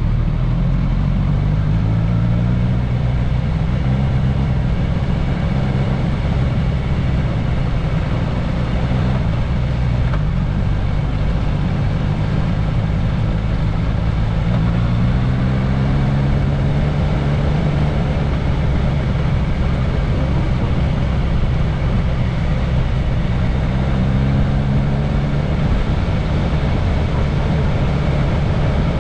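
Suzuki GSX-S 1000S Katana's inline-four engine running steadily, its pitch rising and falling gently a few times.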